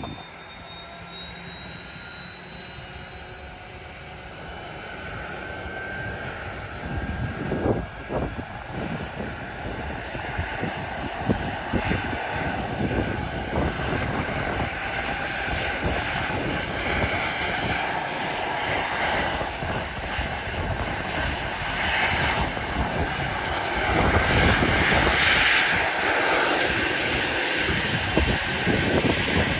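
A turbine helicopter with a ducted fan tail starting up on the ground. A thin turbine whine climbs steadily in pitch as the engine spools up, while the rotor noise grows louder throughout.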